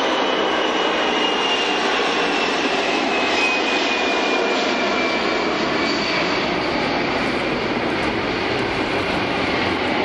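Boeing 747 Shuttle Carrier Aircraft's four jet engines running loud and steady as it moves along the runway, with a high whine that slides slowly down in pitch.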